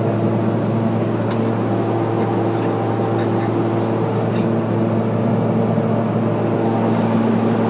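Steady jet aircraft cabin noise heard from inside the cabin: an even hum with several constant low tones over a wash of air noise, with a few faint clicks.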